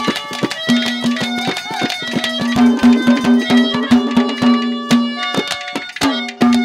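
Haryanvi ragni folk accompaniment playing without singing: a harmonium melody over a held low note, with quick hand-drum strokes throughout.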